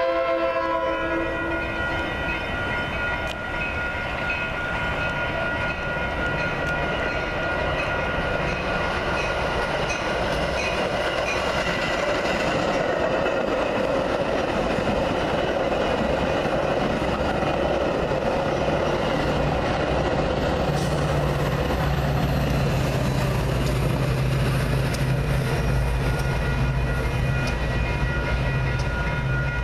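A Metra diesel commuter train's horn chord cuts off about a second in, then the train of bilevel gallery cars rushes past the grade crossing with a steady rumble and wheel clatter. A steady low drone sets in about two-thirds of the way through.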